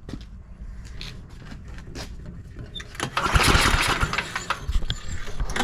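Craftsman snowblower's small engine being pull-started: after a few faint clicks, about three seconds in the recoil starter is yanked and the engine turns over with rapid chugging for a couple of seconds without catching. It won't fire because the fuel shut-off valve is closed and no fuel reaches the carburetor.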